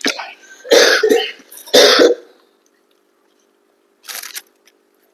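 A woman with a head cold coughing, two loud chesty coughs about a second apart after a smaller one.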